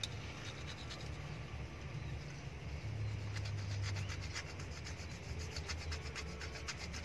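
A pencil scratching back and forth over paper pressed on the stamped engine number, taking a rubbing of it: quick rasping strokes, thickest around the middle, over a steady low hum.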